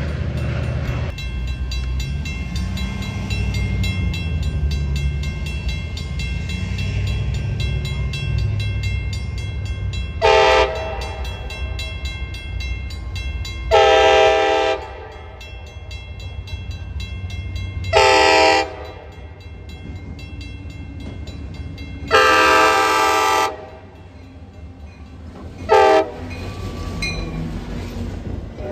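Locomotive horn sounding five times a few seconds apart. The fourth blast is the longest and the last is a short one. A train's low rumble runs underneath.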